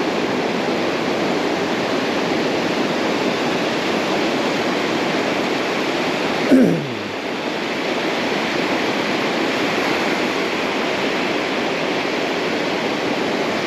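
Steady rush of surf breaking and washing up a sandy beach, with one brief knock about halfway through.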